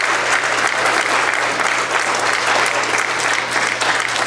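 Audience applauding: many hands clapping in a dense, steady patter, over a steady low hum.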